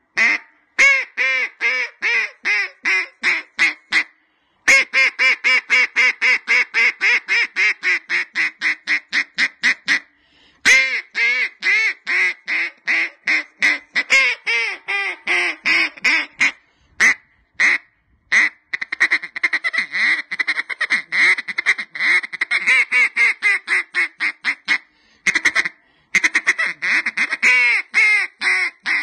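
Banded Lil' Bub single reed duck call blown through a calling routine of hen-mallard quacks. The quacks come in strings separated by short pauses, several strings falling in pitch, with a long fast run of rapid quacks about two-thirds of the way through.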